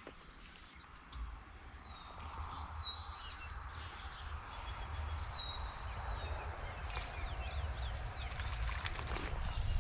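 Water sloshing as an angler wades a slow brook, over a steady low rumble of wind on the microphone. A bird gives a short, downward-slurred call about three times.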